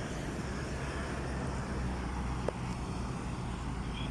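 Street traffic: a steady engine rumble from road vehicles, with two faint ticks.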